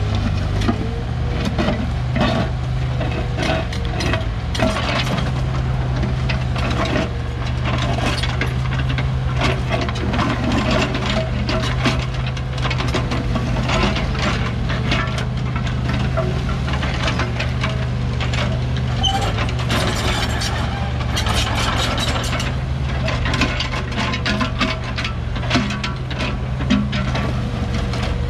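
Komatsu PC15 mini excavator's diesel engine running steadily, with frequent clanks, knocks and scraping from the digging work.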